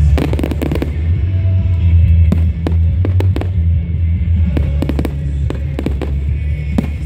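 Fireworks going off in quick succession, many sharp bangs and crackles, over loud music with a heavy steady bass.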